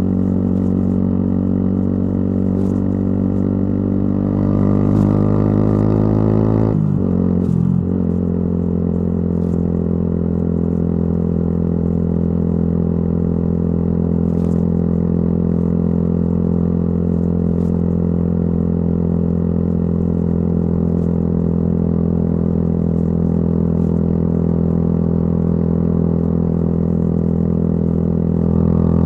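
Yamaha YZF-R125's single-cylinder four-stroke engine through a modified exhaust, running at steady revs under way. About seven seconds in, the revs drop briefly and pick up again, then hold level.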